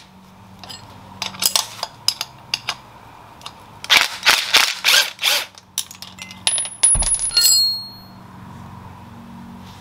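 Metal tools and suspension parts being handled: scattered sharp clicks and knocks, a quick run of them about four seconds in, and a brief metallic clink that rings out near the seven-second mark, over a faint steady low hum.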